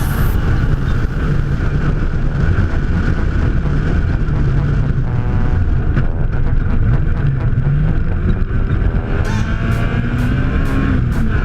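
Off-road race vehicle's engine running, a loud dense rumble. About nine seconds in, a regular ticking about twice a second comes in over it.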